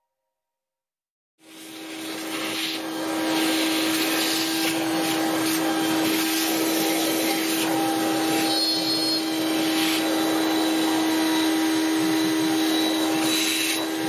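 CNC router spindle running steadily while a small carving bit cuts detail into a wooden relief: a steady whine over the hiss of the cut. The sound comes in about a second and a half in and settles within a second.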